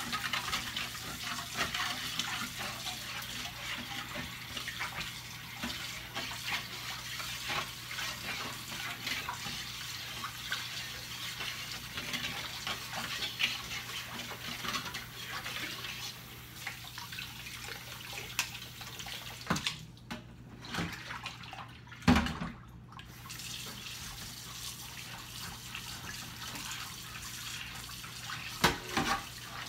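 Tap water running into a stainless steel sink while dishes are washed by hand, with frequent small clinks and knocks of dishware and utensils. The water stops twice for about a second, just after two-thirds of the way through, with a loud knock in between.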